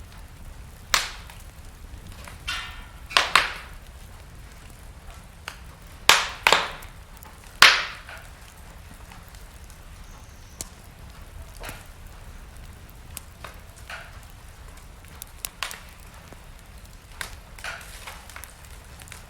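Wood fire crackling in a fireplace: sharp snaps and pops scattered over a low steady rumble, loudest in a cluster in the first half, then lighter crackles.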